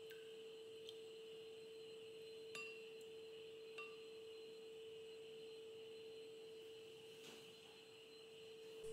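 Near silence: a faint steady hum, with a few faint plinks of tamarind water dripping from a mesh strainer into a bowl of liquid.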